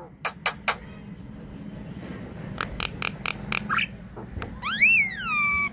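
Javan myna (jalak kebo) singing: three sharp clicks, then a quick run of about six clicks, and near the end a whistle that slides up, drops and holds on a steady note.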